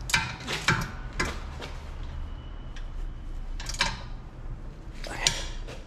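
Steel combination wrench clicking and clinking against a rear brake caliper bracket bolt as the bolt is tightened by hand and the wrench is taken off: a few sharp metallic clicks in the first second and a half, then single ones about four and five seconds in.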